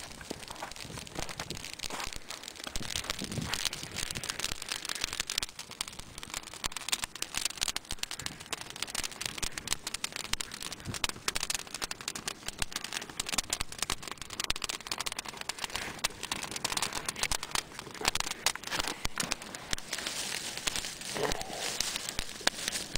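Brushwood fire crackling steadily: burning twigs give off a dense run of small snaps over a soft hiss.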